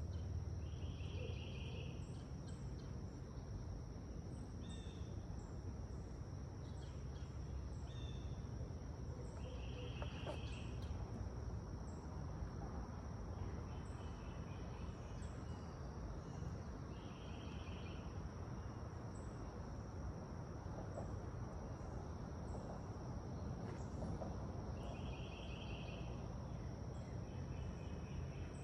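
Outdoor summer ambience: insects keep up a steady high-pitched drone, and a short rapid trill repeats about every eight seconds, over a low rumble.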